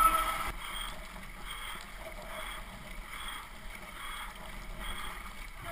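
Double-bladed paddles dipping into a river in a steady rhythm, about three strokes every two seconds, with water washing along the hull of a kayak with outrigger floats. A louder splash comes right at the start.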